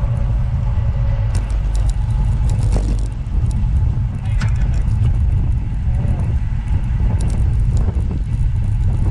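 Continuous low rumble, steady in level, with a few faint clicks over it.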